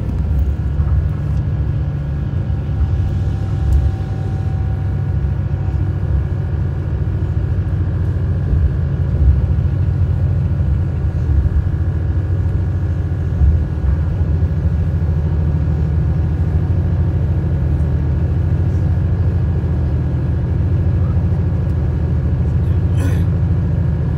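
Steady low rumble of a moving road vehicle heard from inside the cabin: engine and road noise while driving at speed.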